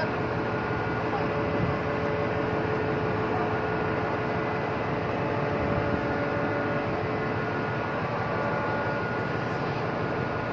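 Steady hum and rush of a ship's machinery running at anchor, with a few faint steady tones held under it and no change in level.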